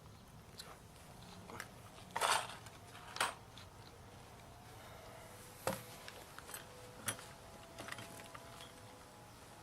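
A few faint knocks and clicks of things being handled between saw cuts, the loudest a short scrape about two seconds in; no saw is running.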